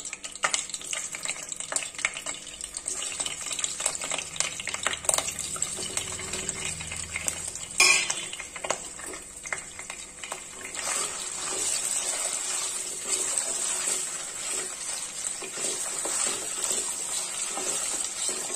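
Paneer cubes frying in hot oil in a pan, with clicks and taps as the cubes are set in and turned with a wooden spatula, and one sharp knock about eight seconds in. The sizzling grows steadier in the second half.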